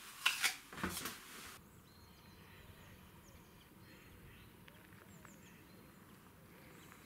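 Crunching bites into a fresh apple in the first second and a half, cut off abruptly. Then faint outdoor background with small bird chirps.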